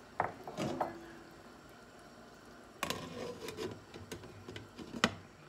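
Glass pot lid knocking against the rim of a metal cooking pot: two sharp knocks in the first second, the second with a short ring, then light clatter and a sharp clink about five seconds in.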